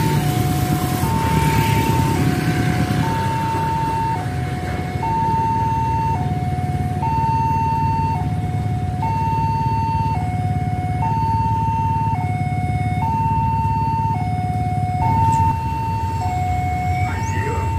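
Railway level crossing warning alarm sounding, an electronic two-tone signal alternating between a higher and a lower tone about once a second, warning that a train is approaching while the barrier is down. A steady low engine rumble from waiting traffic runs underneath.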